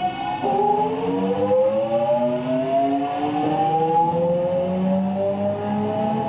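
Toshiba GTO-thyristor VVVF inverter and traction motors of a JR West 207 series 1000-subseries EMU motor car (KuMoHa 207-1037) accelerating. A steady whine jumps suddenly in pitch about half a second in, then several tones glide upward together as speed builds. This car's inverter modulation sound is unusually odd compared with other units, which marks it as a known abnormal-noise car.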